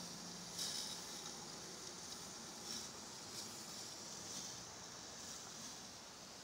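Portable propane grill cooking with its lid closed: a steady hiss with a few brief sizzling crackles, the loudest about half a second in.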